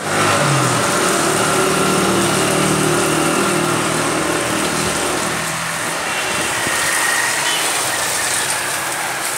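Street noise with a motor vehicle's engine running, a steady hum that fades about halfway through.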